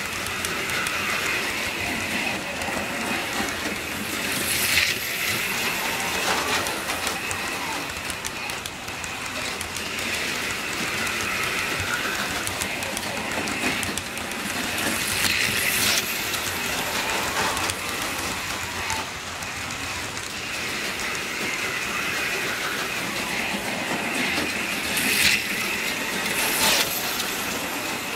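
HO-scale model freight train rolling past, its cars' wheels clattering steadily over the rail joints with a constant high hum. A few brief, sharp louder sweeps stand out over the steady rolling.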